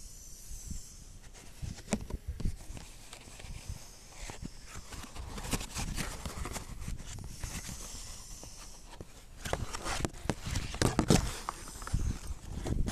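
Handling noise from a phone being moved about and brushed against clothing: irregular rubbing with scattered clicks and knocks, busiest in the second half.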